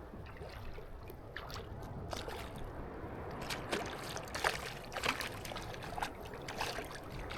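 Water sloshing and splashing against a kayak, with many short sharp splashes and drips, from a hooked fish fighting at the surface beside the boat.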